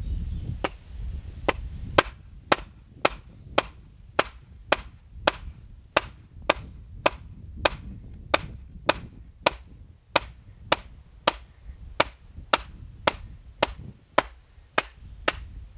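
Side axe striking a willow pole in a steady run of sharp blows, about two a second, working the pole to split it in half.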